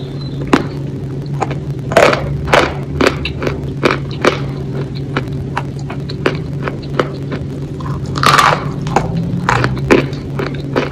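Close-miked eating: irregular crunches and mouth clicks of biting and chewing food, with a longer crunchy burst about eight seconds in. A steady low hum runs underneath.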